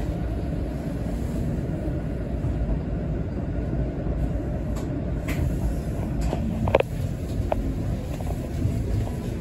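Inside a moving Toronto low-floor streetcar: the steady low rumble of the car running along the rails. A few short clicks and knocks come in the second half, the sharpest about two-thirds of the way through.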